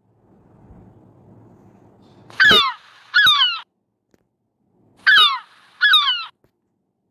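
A bird giving loud, short calls in two pairs, each call sliding downward in pitch, over faint background hiss.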